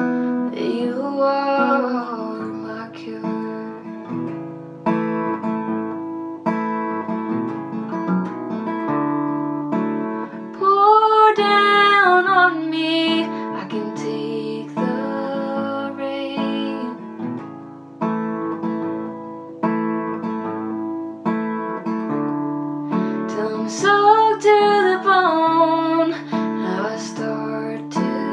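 An acoustic guitar strummed through changing chords while a young woman sings over it, her voice standing out in sung phrases near the start, about halfway through and near the end.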